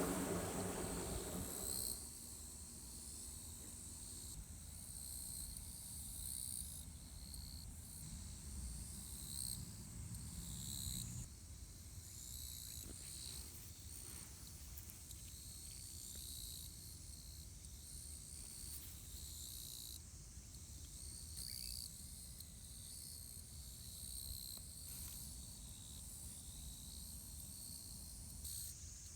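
Insects chirping steadily at a low level over a low rumble; a low hum fades out about two seconds in.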